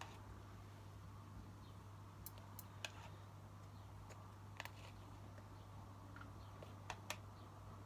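Near silence: a steady low hum with several faint, short clicks scattered through.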